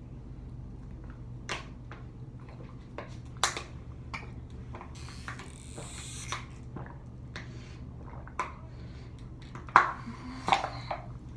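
A small plastic water bottle being handled and squeezed at the mouth: scattered clicks and crinkles of plastic, with a short hissy rush about five seconds in and the sharpest clicks near the end.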